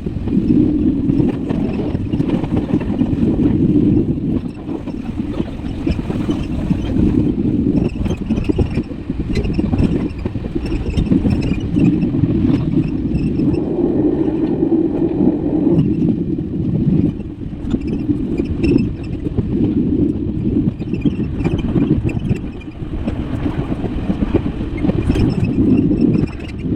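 Car driving through a rainstorm: steady, loud road and wind rumble with scattered taps and clicks of rain on the car.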